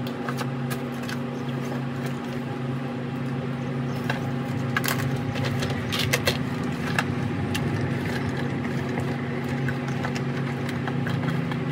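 Steady low hum of a running ceiling fan, under rustling and scattered clicks and knocks as items are rummaged through and pulled out of a bag.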